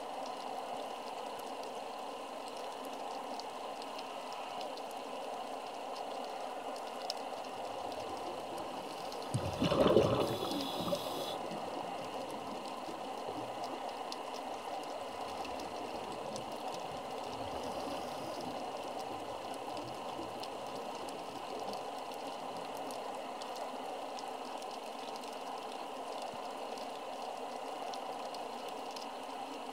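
Underwater ambience through a camera housing: a steady hiss with a faint hum. About ten seconds in comes one short, louder gush of bubbles, typical of a scuba diver exhaling through a regulator.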